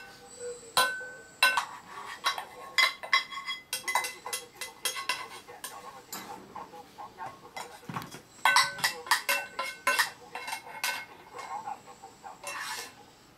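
A small metal saucepan being stirred, scraped and struck with a utensil by a toddler: irregular clinks and taps, the harder hits leaving the pan ringing briefly, with a quieter spell in the middle.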